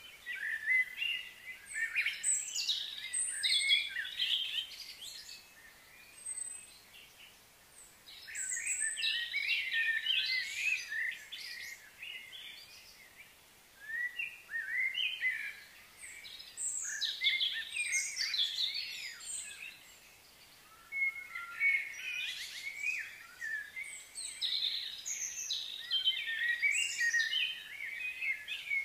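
Birds chirping and singing, many short calls overlapping in spells of a few seconds with brief lulls between them.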